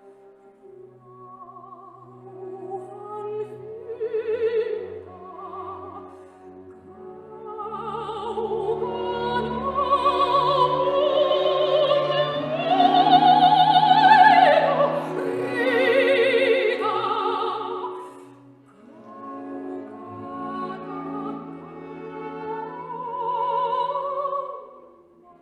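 Operatic classical singing with a wide vibrato over sustained accompaniment. It swells to its loudest about halfway through, drops away briefly, then rises again before fading near the end.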